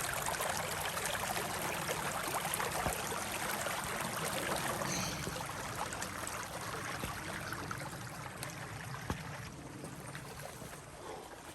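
Creek water running and splashing over rocks, a steady rushing that grows fainter toward the end.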